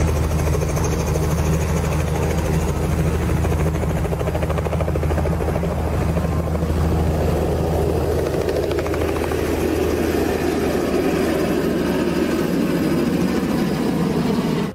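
Small two-bladed helicopter running close by, a steady low engine drone with fast rotor chop. About halfway through it lifts off and flies low overhead, the sound shifting higher and fuller.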